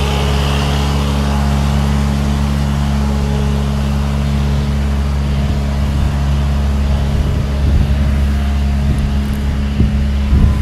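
The bark blower truck's engine running at a steady speed, a low, even hum. Some rough low buffeting comes in during the last few seconds.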